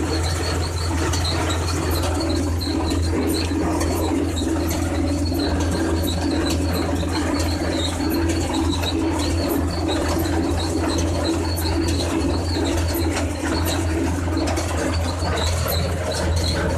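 Tractor engine running steadily under load while pulling a hay baler in second gear, heard from inside the cab, with a short high squeak repeating regularly over it, a couple of times a second.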